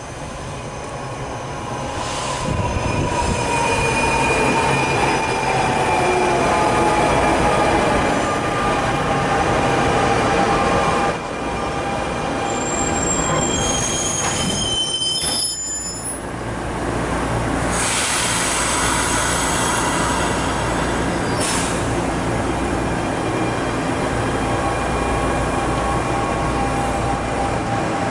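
Train rolling through the station: a whine falls steadily in pitch over the first several seconds, high wheel squeals come about halfway through, and then a steady rumble carries on.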